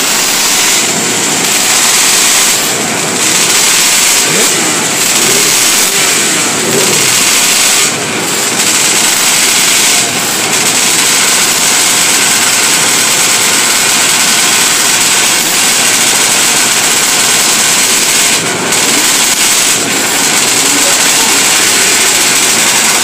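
A grid of 500cc two-stroke racing motorcycles running together at the start, riders blipping the throttles so the revs rise and fall over a dense, loud wall of engine noise.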